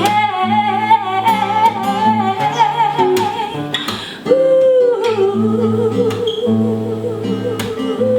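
Acoustic guitar strumming under a singer holding two long notes with vibrato. The first, higher note ends about three and a half seconds in; the second, lower note begins about four seconds in.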